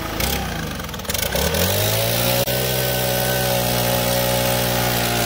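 Gas leaf blower idling, then throttled up about a second and a half in and held at a steady high speed, forcing air down underground PVC conduit to blow a pull line through it.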